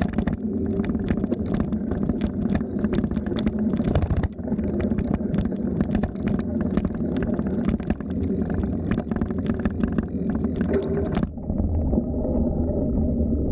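Riding noise from a moving bicycle: a steady low rumble of wind on the microphone, with frequent rattling clicks as the bike and its mounted camera jolt over the path. About eleven seconds in the sound turns abruptly duller, and the clicks stop.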